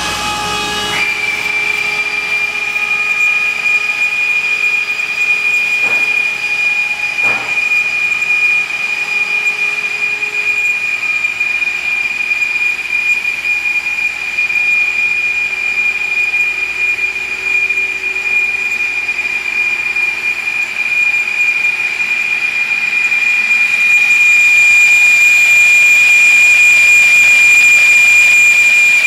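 Ingersoll Rand SSR-EP25 25 hp rotary screw air compressor running just after start-up: its electric motor comes up to speed in the first second, then the machine runs with a steady high-pitched whine. The sound grows louder about 24 seconds in.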